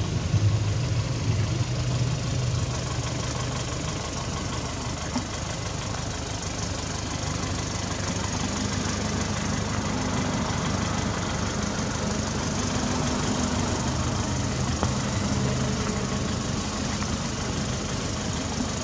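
An engine running steadily, a low hum under constant hiss.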